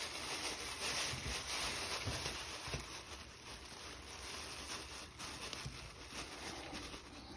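Faint, scattered clicks and rustling of handcuffs being handled while someone works a pick at the keyhole.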